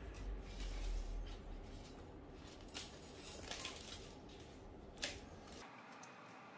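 A thin 1 mm steel gear cable and small aluminium parts being handled on a wooden table: a few light clicks and scrapes of wire and metal, the sharpest about five seconds in. Under them runs a low rumble that stops near the end.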